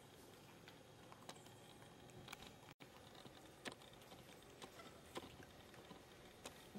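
Near silence: faint outdoor ambience with scattered soft, irregular clicks and ticks, and a momentary dropout a little before the middle.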